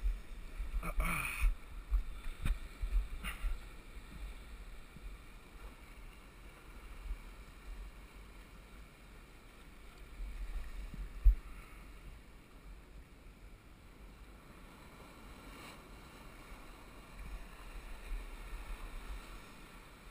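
Small waves washing around shoreline rocks, with wind rumbling on the microphone. A few short knocks come in the first few seconds, and a single sharp thump about eleven seconds in.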